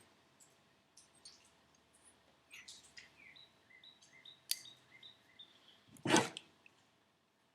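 Quiet handling of small turbocharger parts: scattered light clicks, a sharper click about four and a half seconds in, and a short louder rustle about six seconds in, while an O-ring is being fitted. Faint chirps sound in the background a few seconds in.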